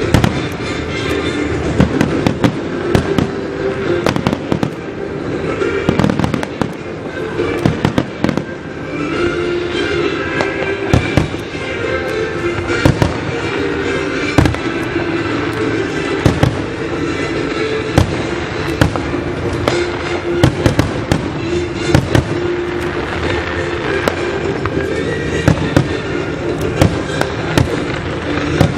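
Aerial fireworks shells bursting in an irregular, rapid series of sharp bangs, with music playing underneath.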